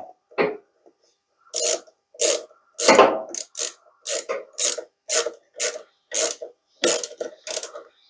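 Socket ratchet wrench clicking in short strokes, about two a second, as it tightens the centre nut of a washing machine heating element.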